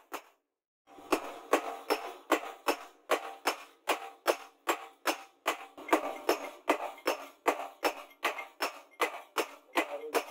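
Hand hammer striking red-hot leaf-spring steel on a steel post anvil: a steady run of ringing metal blows, about two to three a second, starting after a short silence near the beginning.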